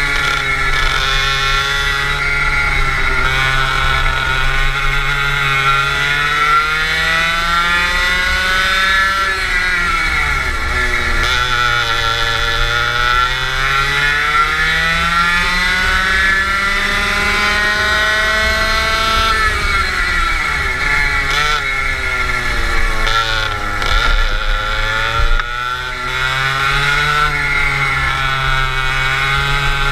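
Go-kart engine heard from the driver's seat, running hard: its pitch climbs steadily along the straights and drops sharply each time the kart slows for a corner, three times.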